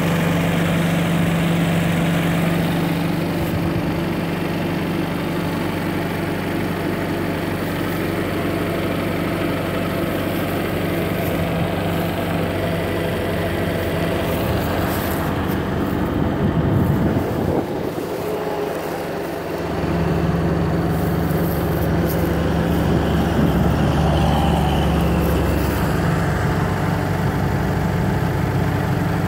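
A JCB 8040 mini excavator's diesel engine idling steadily, a low even hum. It goes briefly quieter in the low end about two-thirds of the way through, then carries on.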